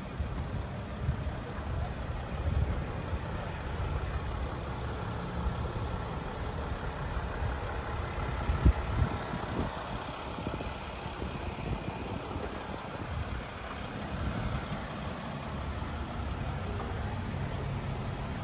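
Mercedes-Benz Sprinter van's engine idling with a steady low rumble, with a single sharp thump about halfway through.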